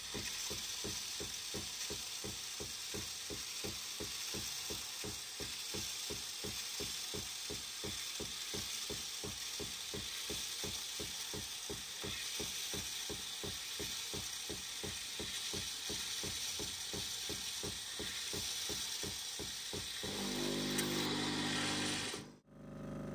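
Philips fully automatic espresso machine frothing milk through its milk carafe: its pump pulses evenly about three times a second under a steady hiss of frothing milk. About 20 seconds in it changes to a steadier hum, then cuts off.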